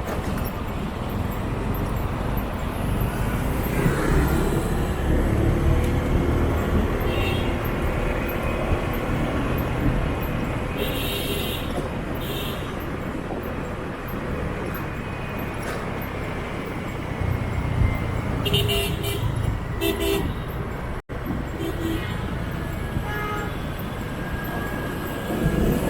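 Motorbike street traffic: scooter engines running amid steady road noise, with several short horn toots, most in a cluster about two thirds of the way in. The sound cuts out for a split second shortly after.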